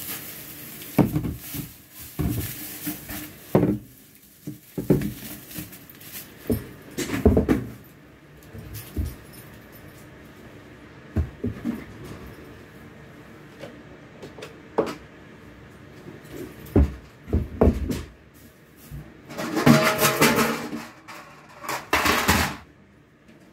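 Room-cleaning handling noises: scattered knocks and clatters of things being moved and set down around a desk, with two longer rustling, scraping spells near the end.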